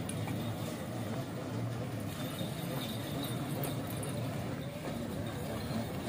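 Small battery-electric mini truck driving slowly across pavement: a steady low running noise from its motor and tyres, with light metallic jingling from the chains and ornaments hung on it.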